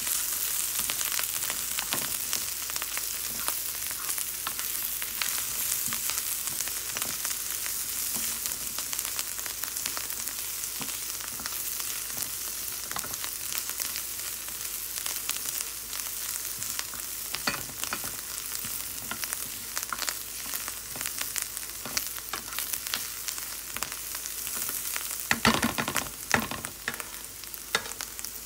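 Food sizzling in a hot pan: a steady hiss with constant small crackles and pops, with a short louder flurry of clicks near the end.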